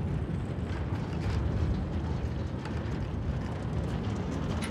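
Narrow-gauge diesel locomotive hauling a train of loaded peat wagons: a steady low rumble of engine and rolling wagons.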